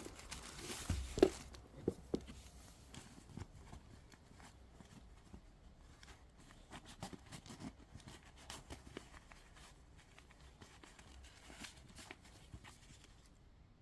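Packaging being handled during an unboxing: scattered light clicks, taps and rustling of cardboard and plastic, with a few louder knocks in the first two seconds.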